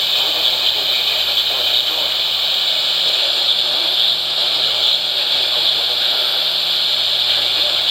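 Steady radio static: an even hiss from a receiver on a weak signal, with a faint low hum underneath.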